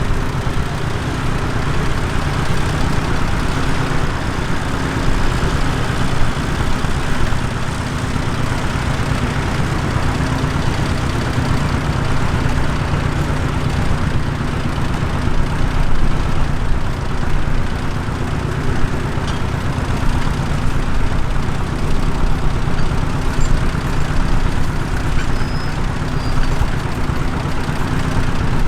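Tractor engine running steadily under a constant load, a continuous low engine drone with no breaks.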